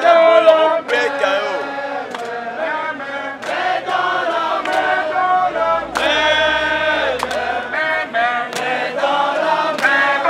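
A group of people singing a chant together, with a sharp clap-like beat about every second.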